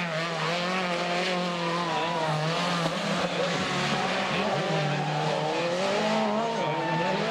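Rally cars' turbocharged four-cylinder engines revving, the pitch rising and falling over and over as one car after another slides through a snowy corner.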